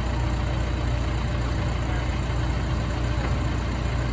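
An old drill rig's heavy diesel engine running steadily at a constant speed, with a deep, even hum.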